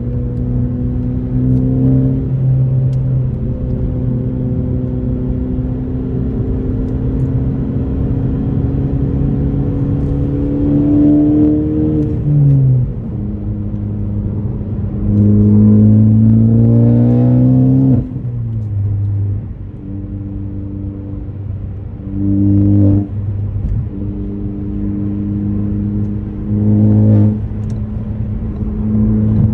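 Ford Focus ST's turbocharged 2.0-litre four-cylinder through an AWE axle-back exhaust under way: a steady cruise, then the engine note climbs under acceleration a little before halfway and drops sharply, climbs again harder and drops at the shift, followed by two short bursts of revs near the end.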